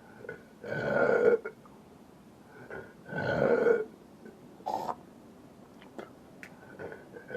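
A man belching deliberately: two long, loud belches about two and a half seconds apart, then a short, sharper sound about a second after the second one.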